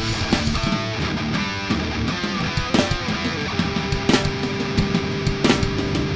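Instrumental passage of a heavy metal song: electric guitar and drums, with one long held note through the second half.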